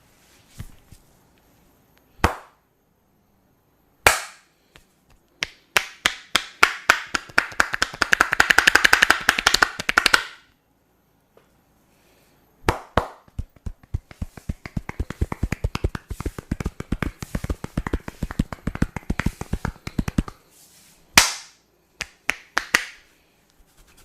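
Hands slapping and tapping in fast runs of percussive head-massage strokes, a few sharp single slaps or claps between them. The strokes come several a second and crowd into a near-continuous patter about nine seconds in.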